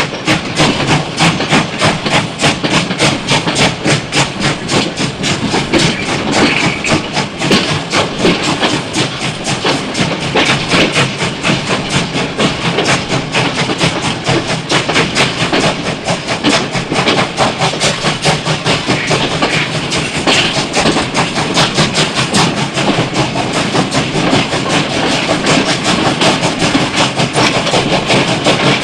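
Steam locomotive running, with steam chuffing and clattering in a fast, even rhythm.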